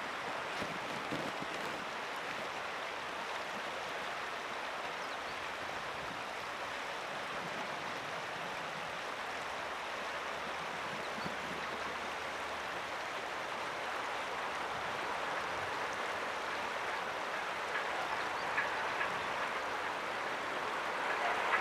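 Taisho-era 8620-class steam locomotive No. 58654 coming on while coasting down a grade, a steady running noise that grows louder over the last few seconds, with a clattering clank from its running gear setting in near the end.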